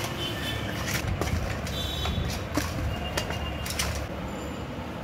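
Hand rubbing turmeric and salt into raw rohu fish heads in a stainless steel bowl: scattered light clicks and knocks as the fish pieces and the hand touch the bowl, over a steady low background hum.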